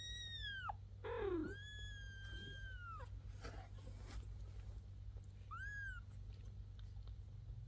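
Newborn kittens mewing as they jostle to nurse: thin, high-pitched cries, one long drawn-out cry about two seconds in and a short one near the end, over a faint steady hum.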